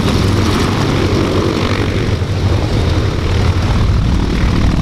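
Piston engines of a propeller airplane taxiing close by, a steady loud low drone.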